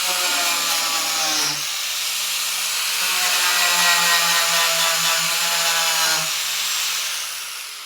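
Handheld power tool motor running steadily under light load, then switched off about six seconds in and winding down.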